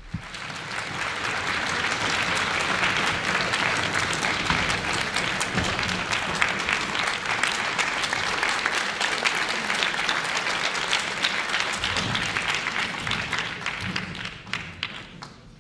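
A large concert-hall audience applauding. The clapping swells over the first couple of seconds, holds steady, and dies away near the end.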